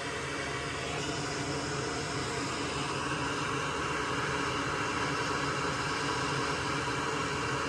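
Steady whooshing hiss with a low hum underneath, like a fan or blower running, rising slightly in level about a second in.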